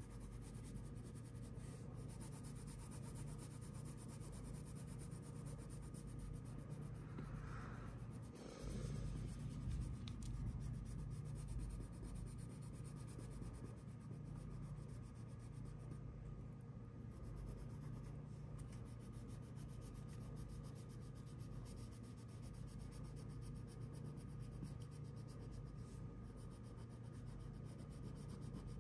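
Wax crayon scratching and rubbing across paper as a leaf is coloured in, over a faint steady hum. It grows louder for a couple of seconds about eight seconds in.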